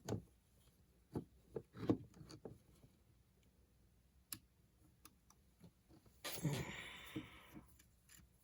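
Small clicks and taps of a screwdriver and screws on a plastic radio transmitter case as screws are taken out, with a louder scrape lasting over a second about six seconds in.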